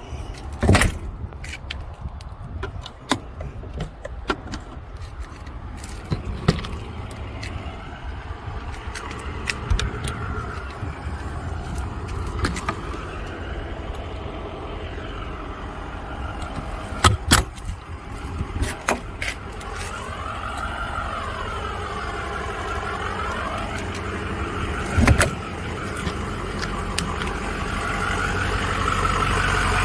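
Gas Class A motorhome running with a steady low engine rumble that builds toward the end, with rattles and sharp knocks from the coach.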